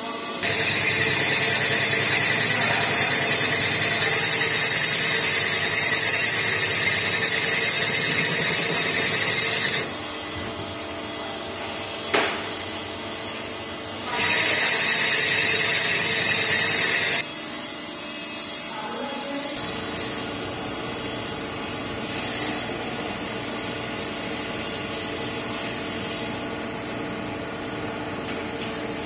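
CNC lathe turning a gunmetal bronze bush. There are two loud stretches of steady high-pitched whine, about ten seconds and then about three seconds long, each starting and stopping abruptly, with quieter steady machine running between and after them.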